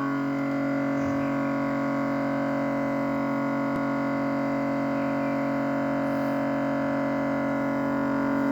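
Samsung inverter refrigerator's compressor running with a steady, loud, multi-toned hum, the abnormal noise that is the fridge's sound problem.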